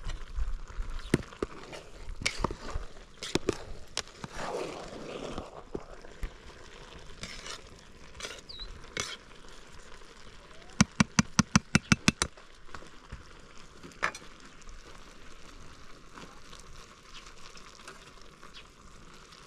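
Kebabs sizzling on a clay barbecue, with scattered crackles and a quick run of about eight sharp knocks about eleven seconds in.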